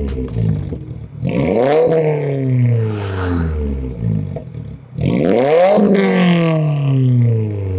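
2022 Subaru WRX's turbocharged 2.4-litre flat-four revved twice while parked, through an Aeroflow Dynamics axle-back exhaust with the secondary cat and resonator deleted. Each rev climbs sharply and then falls away slowly, with crackle from the exhaust as the revs drop.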